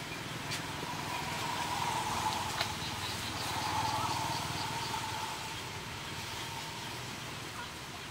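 A distant engine hum swells twice and fades over a few seconds. In the middle there is a short run of faint, high, evenly spaced ticks.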